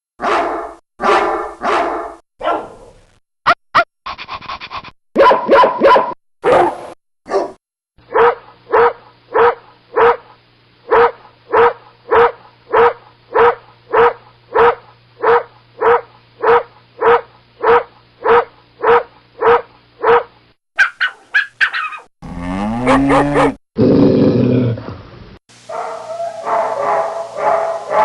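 A series of different dogs barking, one recording after another. In the middle one dog barks in a long, even run of about two barks a second; near the end come higher yelps, a growl and rapid barking.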